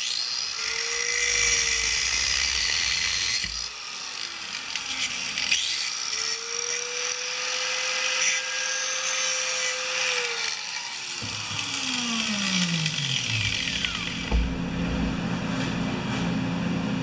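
Electric drill drilling a hole in the cut end of an old snowblower control cable: the motor runs briefly, then runs steadily for about five seconds and spins down, its pitch falling, about eleven seconds in.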